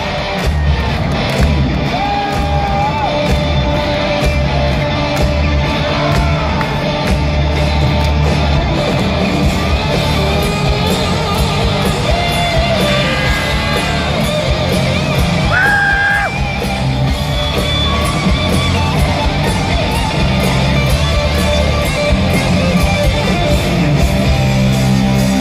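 Live hard rock band playing at full volume in an arena hall: distorted electric guitars and bass over a driving drum beat, with sustained lead-guitar notes. Yells and whoops are heard over the music, picked up from among the audience.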